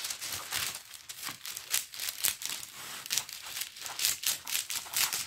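Plastic packaging crinkling and rustling as it is handled, in a quick, irregular run of crackles.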